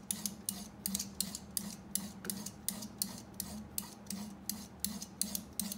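Edge of an old saw blade scraping short, quick strokes across a copper faceting lap, about three or four scrapes a second, scoring cross-hatched grooves that texture the lap for charging with diamond. A steady low hum from the faceting machine runs underneath.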